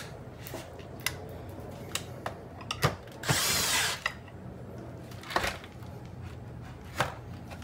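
A cordless drill-driver runs in one short burst of under a second, about three seconds in, driving a screw into the plastic housing of a robot vacuum. Scattered clicks and knocks of plastic parts being handled come before and after it.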